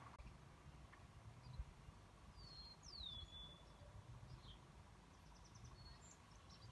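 Quiet outdoor ambience with faint, distant bird calls: one whistle that slides downward about three seconds in, then a few short chirps and a quick series of high ticks, over a low rumble.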